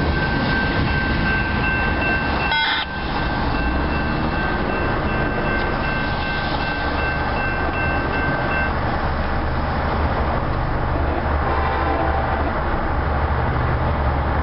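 Railroad crossing signal ringing with a steady high tone as the gates come down, heard from inside a car over a constant low cabin and engine hum. The ringing stops a little past halfway, and a train horn sounds faintly near the end as the train approaches.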